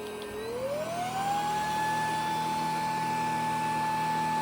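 Bissell PowerClean corded stick vacuum running with a steady motor whine and air rush. About half a second in, the whine rises smoothly in pitch and settles higher a second later, as the motor goes from the min to the max power setting.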